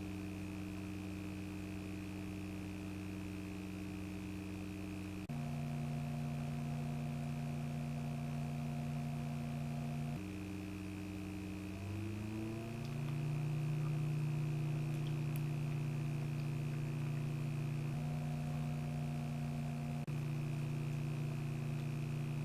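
A steady hum of several held pitches that jumps to a new set of pitches every few seconds, with one slow upward glide about halfway through. A faint high tone runs steadily beneath it.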